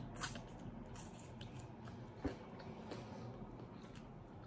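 Close-up, quiet mouth sounds of a person biting into and chewing a grilled green onion, with faint wet clicks and one sharper click a little over two seconds in.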